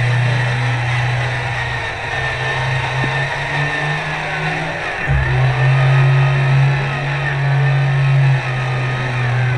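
A steady low engine-like drone, which dips for a moment about five seconds in and comes straight back.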